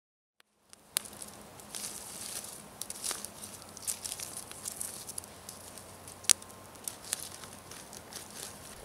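Campfire embers crackling as a stick pokes and stirs the coals, with sharp pops and snaps scattered through and the loudest about six seconds in. The sound comes in from silence about a second in.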